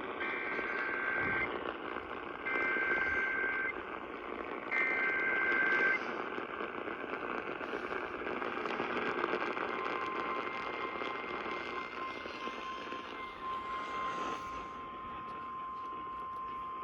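Emergency Alert System signal over radio hiss. Three short bursts of two-tone digital data, the SAME header, come about a second apart. About ten seconds in, a long steady single-pitch alarm tone begins: the weather radio warning alarm that announces a severe thunderstorm warning.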